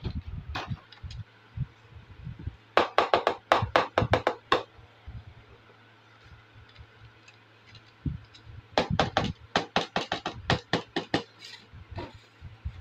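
Small toy kitchen pieces clicking and clattering against each other and the table as they are handled and set down: two bursts of rapid sharp clicks, with soft low taps between.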